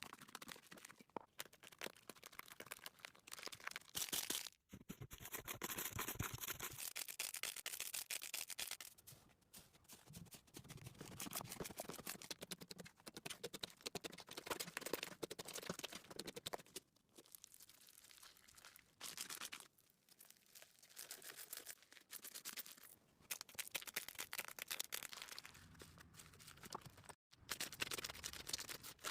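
Hands squishing and working slime, making dense sticky crackles and small pops in stretches of a few seconds, with two very brief cut-outs.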